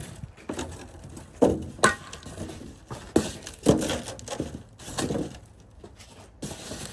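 A string of sharp knocks and thumps at irregular intervals, about eight or nine over several seconds, the loudest near the start and in the middle.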